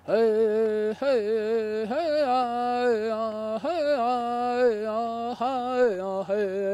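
A Lakota man singing unaccompanied, the opening of a humorous song: long held notes, each phrase sliding into a new pitch about once a second, stepping down lower near the end.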